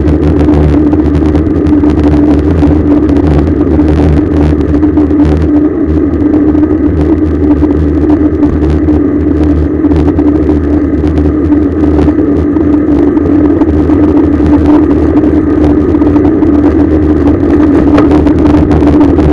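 Steady road and riding noise picked up by a camera mounted on the back of a bicycle: a constant drone with rumble and frequent small clicks and rattles.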